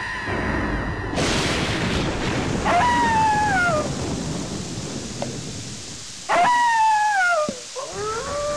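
Dramatic storm sound effect: a sudden crash like thunder about a second in, then a steady rain-like hiss. Over the hiss an animal howls twice, each howl sliding down in pitch. Near the end a rising tone settles into a held note.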